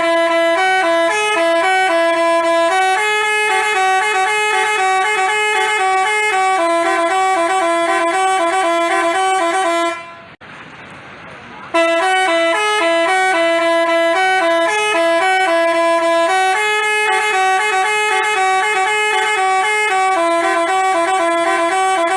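Telolet basuri horn, a bus's multi-trumpet musical horn, playing a tune of short stepping notes. The tune breaks off a little before the middle for about a second and a half of hiss, then carries on.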